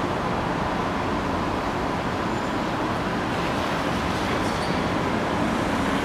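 Steady road-traffic background noise: an even rumble and hiss with no single event standing out, and a faint steady tone above it.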